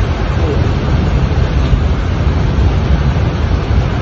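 Steady, loud rushing of water from flooding and heavy rain, with no breaks or distinct events.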